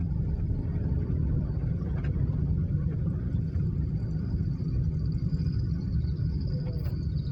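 Steady low road rumble of a car being driven.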